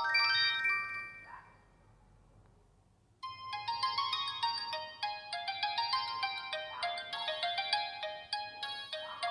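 Samsung GT-E3300L mobile phone ringtones. One polyphonic melody fades out in the first second, then after a short pause a new ringtone starts abruptly about three seconds in: a quick, bright run of notes.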